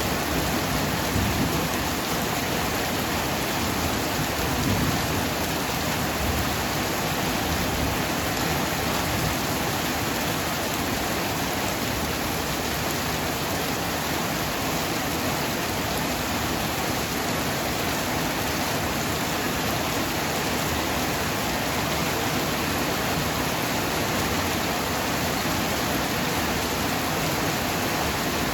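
Heavy tropical rain pouring steadily, a dense even hiss. The low tail of a thunder rumble dies away in the first second.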